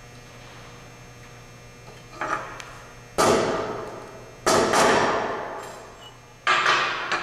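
Claw hammer striking a nail held against an aluminium rod, punching a dent to mark a drill hole: a light tap about two seconds in, then three hard blows a second or two apart, each ringing on as it fades.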